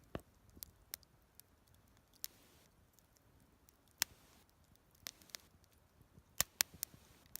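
Scattered sharp clicks and snaps, about a dozen at irregular intervals, with a cluster near the end, over a faint hiss.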